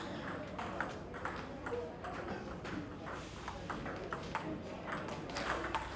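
Table tennis ball clicking off the bats and bouncing on the table in a rally: an uneven, quick run of sharp ticks.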